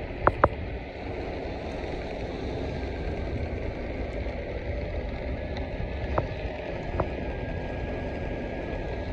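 Electric skateboard rolling along an asphalt path: a steady rumble of wheels and air noise, with a few sharp clicks, two just after the start and two more about six and seven seconds in.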